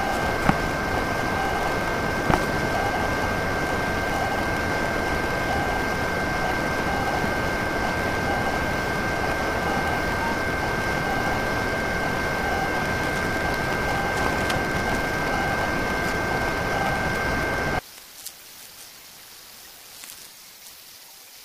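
Unclebucks Larva large-format 3D printer running: a steady whirring hiss with a steady high whine. It cuts off abruptly near the end, leaving a faint hiss with a few small clicks.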